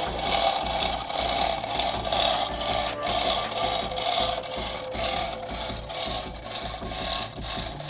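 Hand chain hoist on a gantry crane being hauled to lift a stone grave cross, its chain running through the block with a repeated rasping rattle at each pull.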